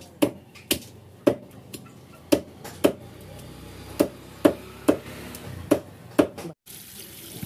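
A meat cleaver chopping chicken legs on a wooden log chopping block: about ten sharp chops at an uneven pace, then a sudden break near the end.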